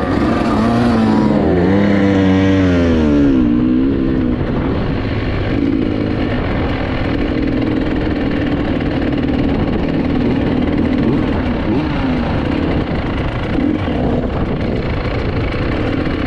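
GASGAS EC 300 TPI two-stroke enduro bike engine, heard close up from the handlebars, rising and falling in pitch with throttle blips in the first few seconds. It then runs steadily at low revs as the bike rolls slowly.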